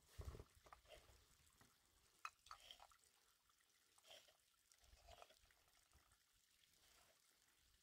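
Faint water sounds: a few soft splashes and drips, as from a shallow rocky stream, over a very quiet background.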